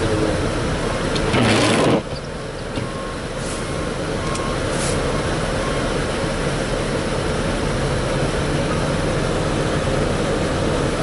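Heavy snow-removal machinery running steadily, with engine drone throughout. About two seconds in, a loud rushing burst cuts off sharply.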